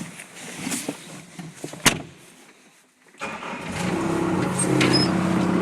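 A sharp click about two seconds in, then the Bobcat S130 skid steer's 49 hp four-cylinder Kubota diesel starts about three seconds in and settles into steady running. The machine is due a new muffler.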